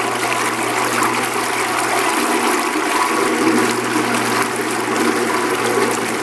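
A Power Fist 4.5-inch mini angle grinder running submerged in a bucket of water, its spinning motor churning the water into a steady, heavy sloshing and splashing that throws water over the rim. A steady hum runs underneath.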